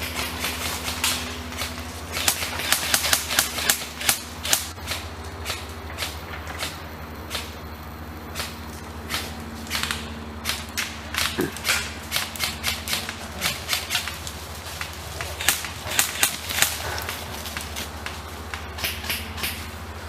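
Airsoft guns firing: sharp cracks, some single and some in quick runs, coming in several volleys separated by short pauses.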